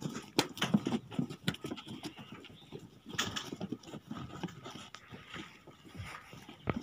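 Irregular footsteps and short knocks as firefighters in boots run across dry ground, busiest near the start and again around three seconds in.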